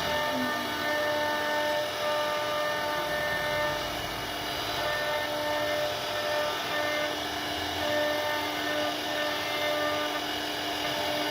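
CNC router spindle running and carving wood: a steady drone with a whining tone that fades in and out as the cut goes on.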